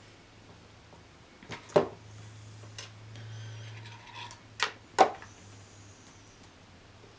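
Small plastic statue parts being handled and fitted together: several sharp clicks and taps, the loudest about two seconds and five seconds in. A low hum swells and fades through the middle.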